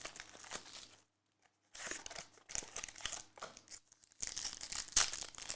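Rustling and crinkling of trading cards and their packaging being handled and sorted, in irregular stretches with a short pause about a second in.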